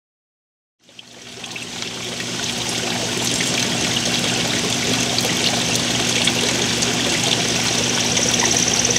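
Swimming pool water trickling and lapping: a steady rush that fades in about a second in, with a faint low hum underneath.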